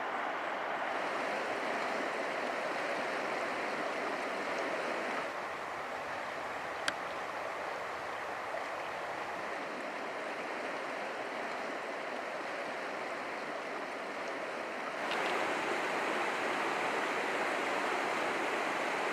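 River water rushing over rocks in a steady hiss, slightly softer from about five seconds in and louder and brighter near the end. A single sharp click comes about seven seconds in.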